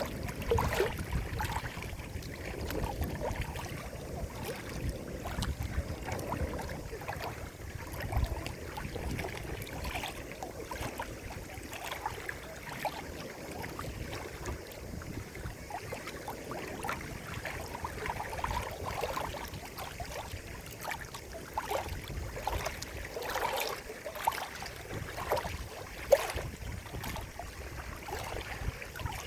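Running water trickling and gurgling, with irregular small splashes and plops; one sharper plop near the end.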